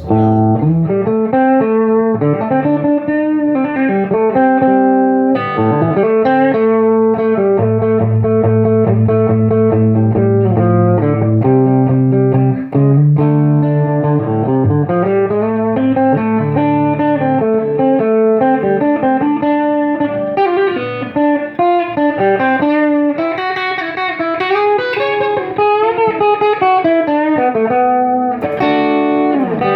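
Electric guitar played straight into a Bell 3723M PA head with no pedals, its negative feedback switch disengaged and the volume at about 6: a continuous passage of single-note lines and held notes with some sustain.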